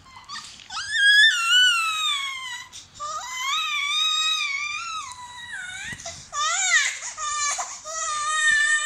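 A young baby squealing and cooing in a high voice: several long drawn-out calls that rise and fall in pitch, with quick warbling ups and downs about two-thirds of the way through.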